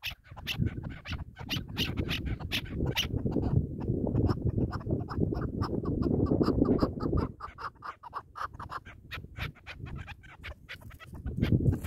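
Chukar partridges calling in a rapid run of sharp clucking notes, about four a second. Wind rumbles on the microphone through the middle of the stretch and again near the end.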